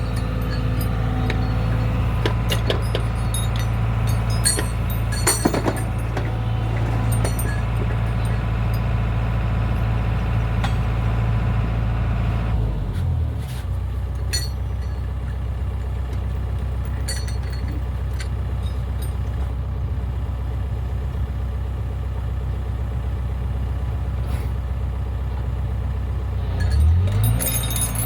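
Excavator's diesel engine running steadily, with scattered clinks and knocks in the first several seconds. The engine note dips about halfway through and rises again near the end.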